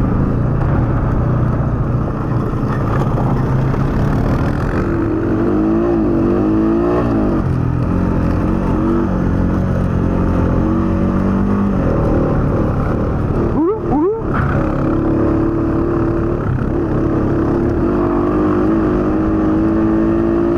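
Honda ATV engine running under load while climbing a grassy hill trail, its revs rising and falling with the throttle. About two-thirds of the way in the engine note drops briefly, then climbs sharply again.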